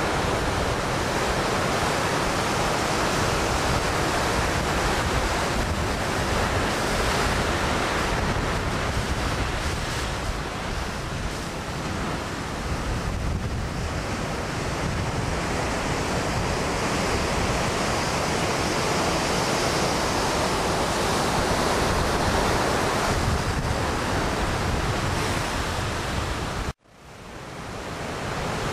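Steady rush of ocean surf breaking, mixed with wind buffeting the microphone. Near the end it cuts out abruptly and fades back in.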